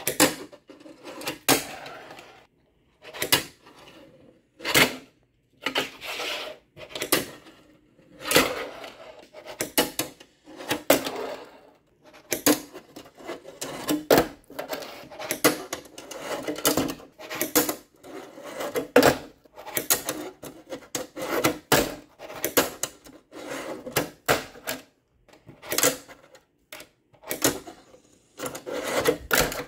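Fingerboard (Tech Deck) being flicked, popped and landed on a wooden stair set and ledge: many sharp clacks of the little board hitting wood, between stretches of its wheels rolling and the deck grinding along the ledge.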